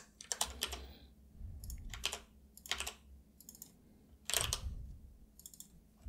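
Computer keyboard typing in short bursts of keystrokes, about six clusters with quiet pauses between them.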